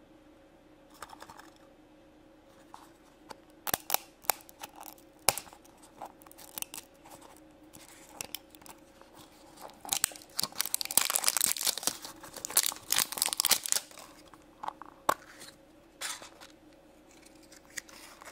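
Plastic blind capsule being handled and opened by hand: scattered clicks and taps of hard plastic, then a few seconds of loud crinkling and tearing of a plastic wrapper about ten seconds in, followed by a few more clicks.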